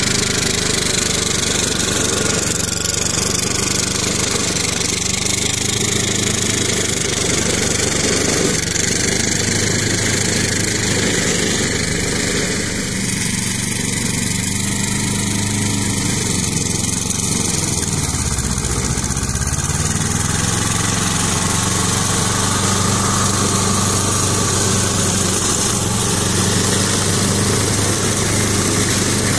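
Ferrari 95RS tractor's Lombardini 40 hp diesel engine running steadily while driving a rear-mounted rotary brush cutter through tall grass and reeds, over the hiss of the cutter. The engine note sags about two-thirds of the way through, then climbs back.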